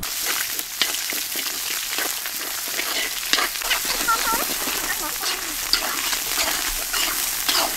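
Chopped red onions sizzling in hot oil in a large wok, with a metal ladle clinking and scraping against the pan as they are stirred.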